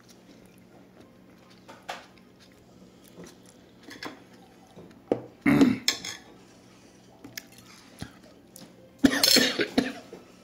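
Eating at the table: small clinks of plate and cutlery, and two loud bursts of coughing, about halfway through and near the end. The coughing is brought on by a hot chili.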